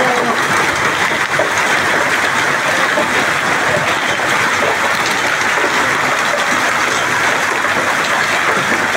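Heavy hail falling: a loud, steady din of countless small hailstone impacts with no letup.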